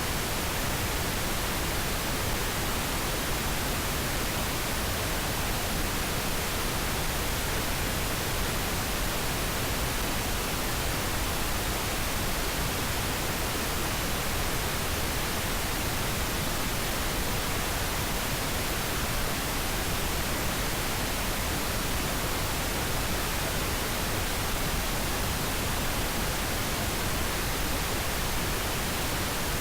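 Steady synthetic pink noise: an even, unchanging hiss with no breaks or other sounds.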